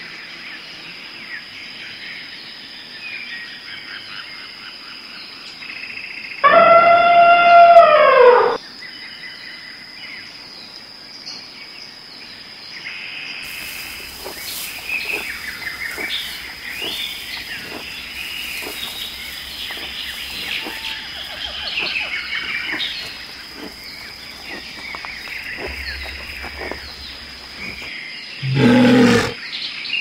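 Mixed bird and wild animal calls: scattered chirps and whistles over a steady high-pitched whine, a loud drawn-out squawk that rises and falls about six seconds in, and a short loud low call near the end.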